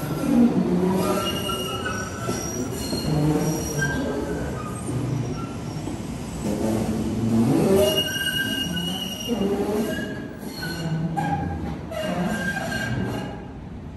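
MBTA Green Line light-rail train pulling out of the platform, its wheels squealing again and again in short high-pitched squeals over the rumble of the cars. The sound dies down near the end as the train moves off.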